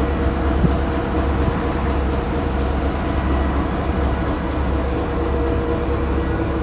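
EMD GP38-2 diesel locomotive's two-stroke V16 engine idling while standing, a steady rumble with a few held tones on top.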